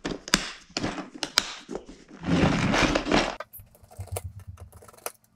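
A plastic parts organizer being handled: a run of sharp plastic clicks, then a louder rattling clatter of the metal and plastic fittings inside it, followed by softer scattered clicks.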